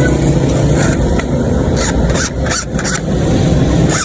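A motor running steadily with a low rumble, with several short, sharp clicks or scrapes between about two and three seconds in.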